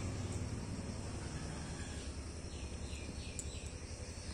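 Outdoor background noise: a steady low rumble, with three faint, short, falling chirps about two-thirds of the way through.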